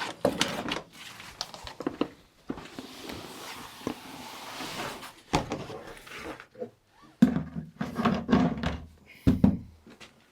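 Freshly ground cornmeal poured from a bucket into a barrel, a rushing pour lasting about two and a half seconds between knocks of the bucket. Several heavy thumps and knocks follow near the end as the barrel is closed.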